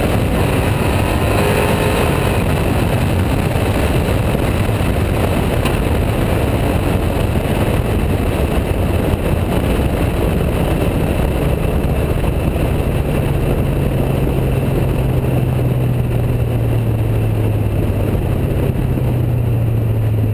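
Wind and road noise rush over a camera mounted low on the side of a Chevrolet Impala SS as the car drives along, with the engine droning low underneath. A steady low engine hum comes up about two-thirds of the way through.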